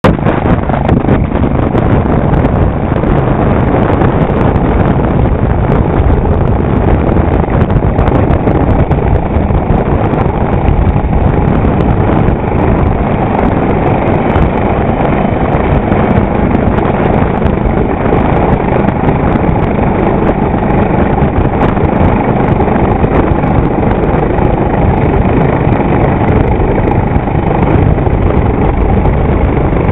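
Coastguard AgustaWestland AW139 helicopter hovering low overhead, its rotor and twin turbine engines running loud and steady, mixed with the lifeboat's engines and the rush of its wake.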